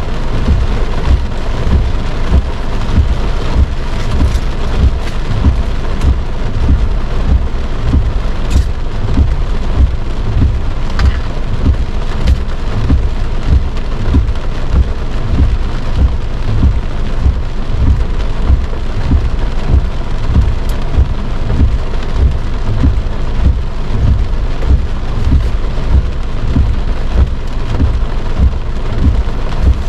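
Heavy rain drumming on a car's roof and windshield, heard from inside the cabin: a loud, dense, uneven patter of drops.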